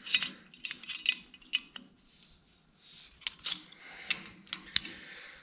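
Short metallic clicks and clinks of a wrench backing off the feed screw of a brake-line flaring tool's yoke, metal tapping on metal, with a short lull about two seconds in before more scattered clicks.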